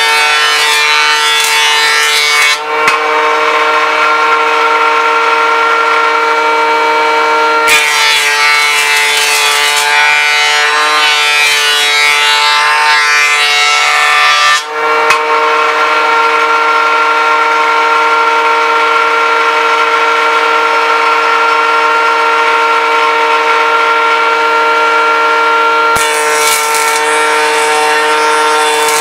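Jointer running with a steady motor whine as a solid oak board is fed over its cutterhead. The rough cutting noise comes and goes: for about the first two and a half seconds, for about seven seconds starting some eight seconds in, and again near the end, with only the whine between the passes.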